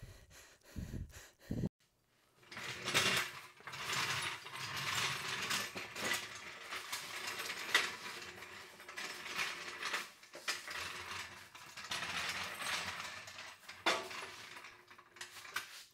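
Irregular metallic clicking and clattering of hand tools and metal parts being handled, starting about two seconds in and running on with no steady rhythm.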